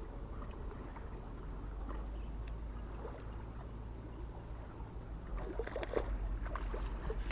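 Steady low rumble with faint water lapping and a few small splashes and knocks near the end.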